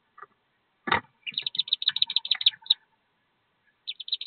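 Wood duck ducklings peeping in the nest box: quick runs of short, high peeps, with one sharp knock about a second in and a brief pause before the peeping starts again near the end.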